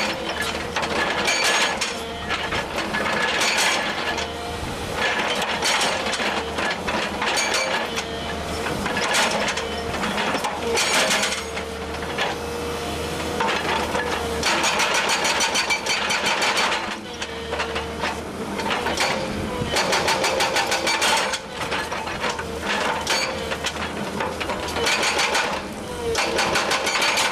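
Feeleng FINE 20 Top hydraulic breaker hammering rock, its chisel striking in rapid blows. The blows come in runs of several seconds with brief pauses between, over a steady low hum.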